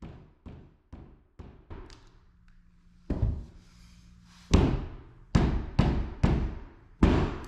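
Fist punching a square of drywall cut out with a multi-tool to knock it through the wall, a series of hollow thumps. About six light knocks come in the first two seconds, then about six much heavier blows every half second to a second.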